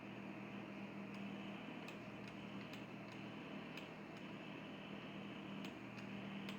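Steady low hum and hiss, with faint light ticks at irregular intervals, about seven of them.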